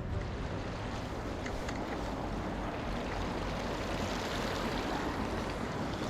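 River water rushing steadily past, with wind buffeting the microphone.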